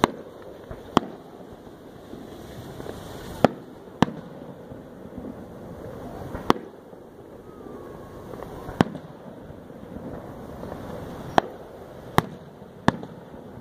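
Aerial fireworks shells bursting: about nine sharp bangs at irregular intervals, a second or more apart, over a steady background hiss.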